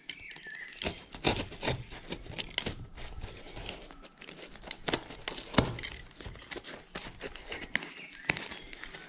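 A snap-off utility knife cutting open the taped plastic wrapping of a cardboard parcel: irregular crinkling and scraping of the wrap, with sharp snaps as the tape gives.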